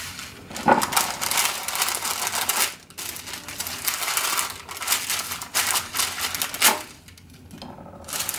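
Baking paper crinkling and rustling while slabs of set chocolate bark are cracked apart by hand, with pieces clicking onto a plate. The crackling is dense and busy, with a short break about three seconds in and a quieter stretch near the end.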